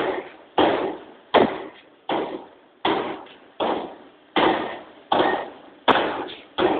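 40cwt Massey power hammer striking a red-hot stainless steel ring, about nine heavy blows at a steady pace of one every three-quarters of a second, each blow ringing away before the next.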